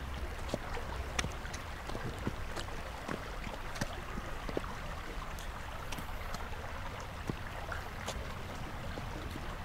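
Footsteps and a horse's hooves crunching on a gravel track at a walking pace: irregular small crunches over a steady rushing noise and a low rumble.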